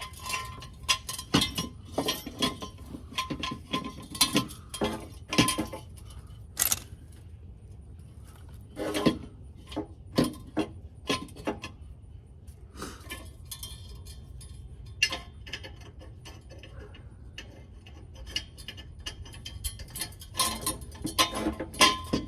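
Small metal objects clinking and knocking as they are handled: irregular sharp clinks, busiest in the first six seconds and again near the end, over a steady low hum.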